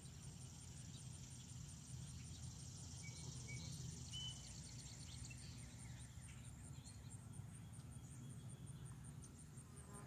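Faint, steady insect trill of rapid, evenly spaced high pulses, typical of crickets, with a few short bird chirps about three to four seconds in, over a low rumble of breeze on the microphone.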